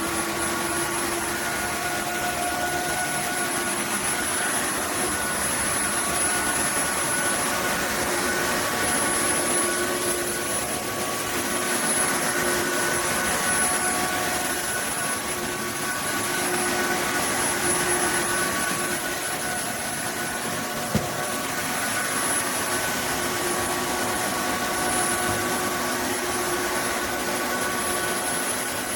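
Roborock F25 GT cordless wet-dry vacuum mop running in Max mode: a steady high motor whine with a rushing hiss of suction and the hum of the roller. A single short click comes about 21 seconds in.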